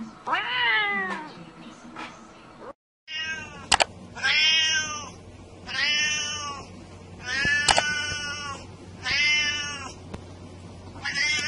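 A cat meowing: one meow that rises and falls, then after a brief break a run of six similar meows, about one every second and a half. A few sharp clicks fall between the meows.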